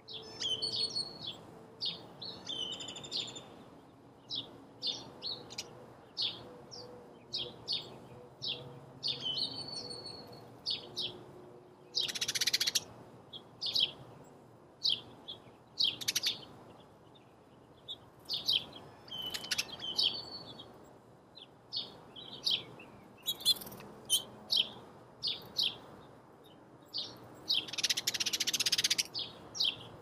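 House sparrows chirping: short, high chirps repeated over and over at uneven spacing, up to a couple a second. Two louder, noisy bursts stand out, about twelve seconds in and near the end.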